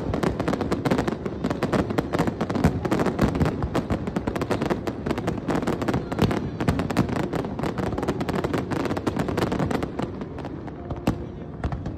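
Fireworks going off in a dense, unbroken volley of rapid bangs and crackles as aerial shells burst and ground fountains fire; the volley thins out near the end.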